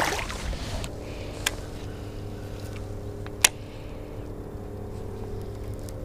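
A boat motor hums steadily, its pitched drone setting in about a second in. Two sharp knocks come through it, the second louder.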